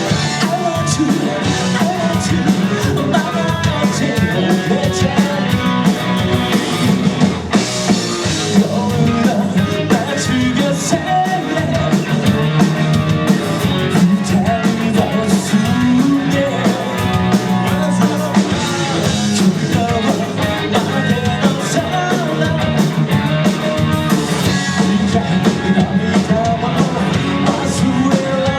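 Live rock band playing a fast rock song on drum kit, electric guitars and bass, loud and steady throughout.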